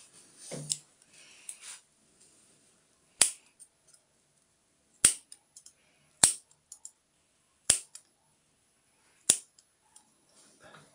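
Surgical scissors snipping through a pit bull puppy's ear along an ear-cropping clamp: five sharp snips, each a second or two after the last.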